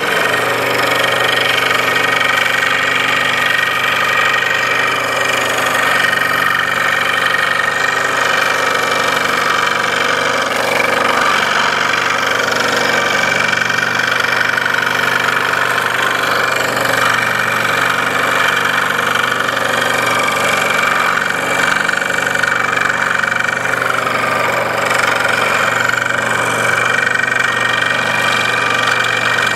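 Makita scroll saw running steadily at constant speed, its reciprocating blade cutting through a plywood cut-out as the piece is fed by hand.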